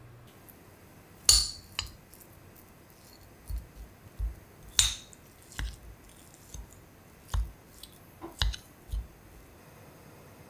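A metal spoon clinking and scraping against ceramic dishes as soft dog food is dished out: a dozen or so irregular clinks and knocks, the sharpest about a second in and near the middle.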